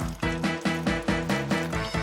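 Upbeat background music with a bouncy, even beat of about four notes a second.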